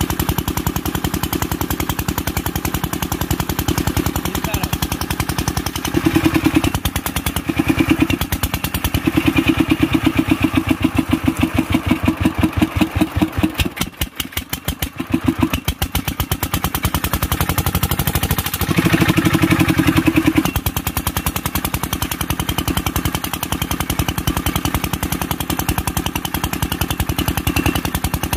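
Single-cylinder Kirloskar diesel engine running with a rapid, even exhaust beat while its governor and speed are being set. The sound swells louder in a few stretches and drops away briefly about halfway through before picking up again.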